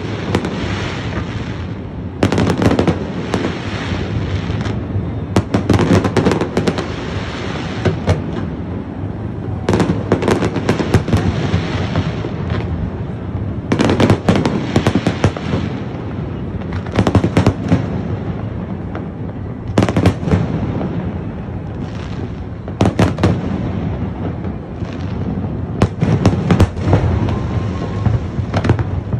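Aerial fireworks display: clusters of rapid sharp bangs and crackling every couple of seconds, over a continuous low rumble of bursts.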